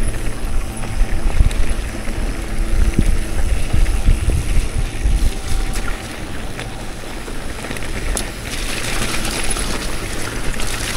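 Wind buffeting the microphone on a moving mountain bike, over the rumble of tyres on the trail and scattered knocks and rattles from the bike over bumps. The hiss grows brighter in the last few seconds.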